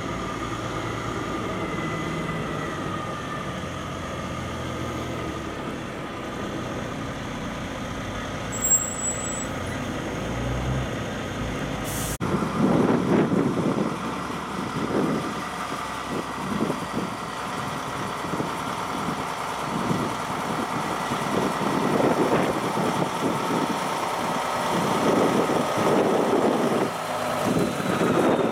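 Heavy Kenworth truck diesel engines running at low speed. About 12 seconds in, the sound cuts to another Kenworth prime mover running near idle, its low rumble rising and falling unevenly.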